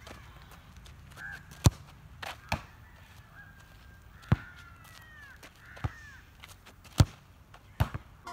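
A football being touched and kicked by foot: a scattering of sharp single thuds, three of them louder, with birds calling in the background.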